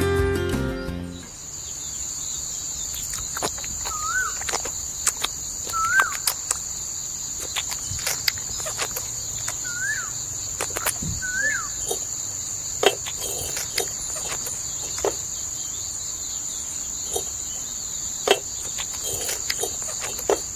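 Steady high-pitched trilling of crickets or similar insects, with a bird giving a short up-and-down whistled call four times, and scattered light clicks and ticks.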